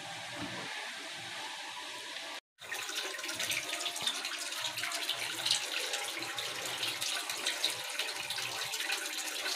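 Steady rushing of running water with many small high crackles. It cuts out briefly about two and a half seconds in, then comes back a little louder.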